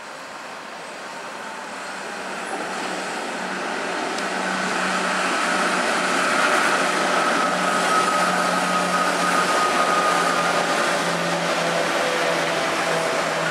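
Two Class 86 electric locomotives hauling a container freight train past, growing louder as they approach and staying loud as they go by. A steady low hum and a higher whine sit over the rush of wheels on rail.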